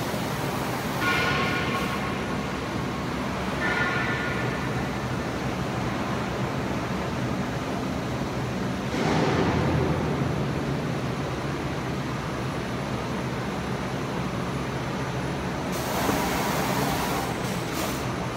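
Honeycomb paperboard lamination line running: a steady machinery hum of motors and conveyor rollers. It swells now and then, with a brief high whine about a second in and again near four seconds, and a louder rush around the middle.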